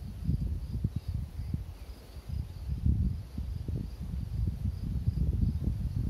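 Wind buffeting the microphone in uneven gusts, a deep rumble that swells and fades. Behind it, a faint high insect trill pulses a few times a second.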